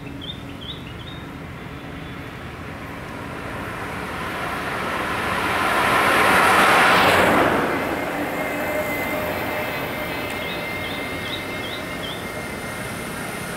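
A Toyota car drives past close by: its tyre and engine noise swells to a peak about seven seconds in, then fades. Short bird chirps come in quick runs near the start and again near the end, while an approaching motorcycle engine is faintly heard in the last seconds.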